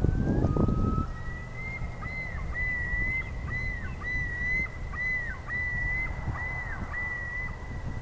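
Common loon giving a long call: a rising note, then a long run of repeated up-and-down phrases that stop near the end. Low wind rumble runs underneath, with a louder low rustle in the first second.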